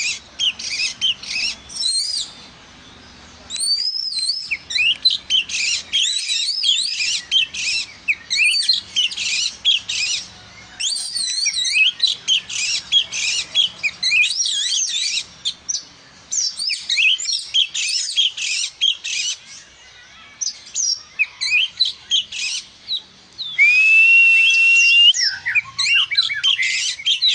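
Oriental magpie-robin singing hard, a fast, varied string of chirps, whistles and trills in phrases broken by short pauses. Near the end comes one long held whistle.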